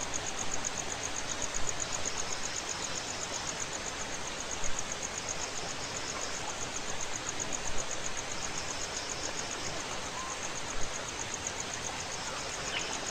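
Insects, cricket-like, chirping in a high-pitched run of fast, even pulses over a steady background hiss, with a few faint brief bird-like chirps near the end.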